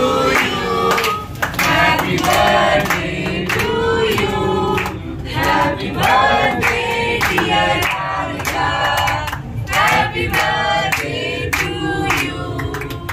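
Mixed group of young men and women singing a birthday song together while clapping along.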